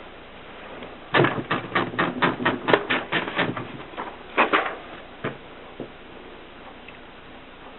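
Groma typewriter being typed on: a quick run of about a dozen key strikes at roughly five a second, then a short pause, a couple more strikes and two single ones.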